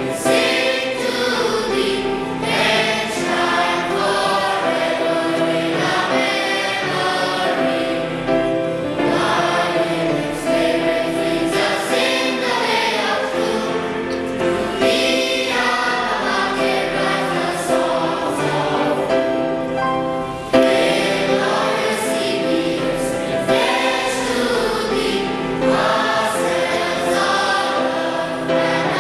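School choir singing its school anthem, one continuous sung passage with a brief break about twenty seconds in before the next phrase starts.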